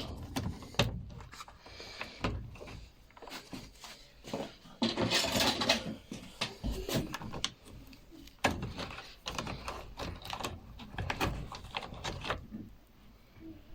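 Irregular clicks, taps and knocks of hands and tools handling a washing machine's control board and its small parts, with a brief scraping noise about five seconds in.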